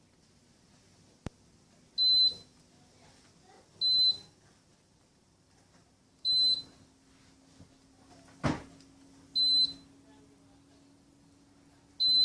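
Heat pump indoor unit giving five short high electronic beeps at irregular intervals, each one acknowledging a press on its remote control, with a single sharp knock past the middle and a faint low hum setting in about halfway.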